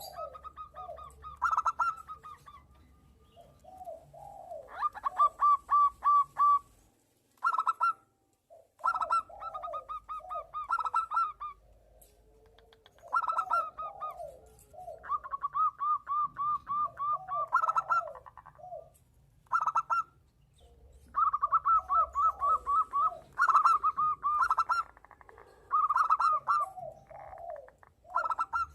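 Zebra doves (perkutut) calling back and forth. Phrases of quick, repeated cooing notes come every few seconds, with lower, slower coos in between.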